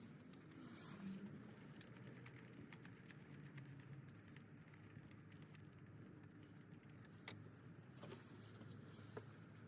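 Faint, irregular clicks and light taps of a hand tool working on the ignition coil bolts of a BMW 328i engine, with a few sharper ticks near the end, over a low steady hum.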